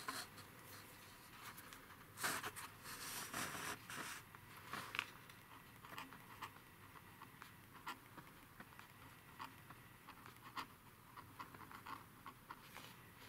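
Pen writing on a paper worksheet on a tabletop: faint scratchy strokes coming in short irregular spurts, with a louder stretch of scraping about two to four seconds in.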